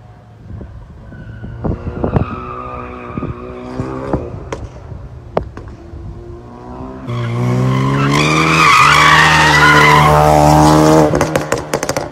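Ford Focus RS with a de-catted valved exhaust drifting: the engine revs with sharp exhaust pops through the first half. About seven seconds in it gets much louder, with the engine pitch rising and loud tyre squeal. Near the end there is a quick run of exhaust crackles.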